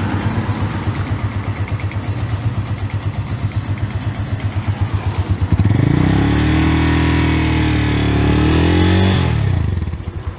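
Honda Phantom 200's single-cylinder four-stroke engine, heard at the exhaust muffler, idling with an even pulse. About halfway through it is revved up, held for roughly three seconds, then drops back to idle. The engine runs a little noisy in the top end, which the seller suspects is a slackening cam chain.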